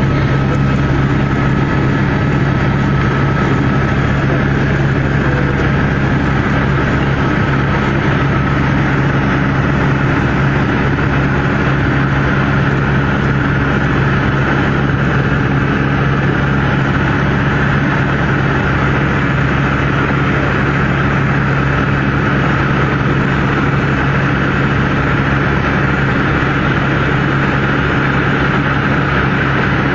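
Helicopter in level flight heard from inside the cabin: a steady, loud drone of engine and rotor with a constant low hum.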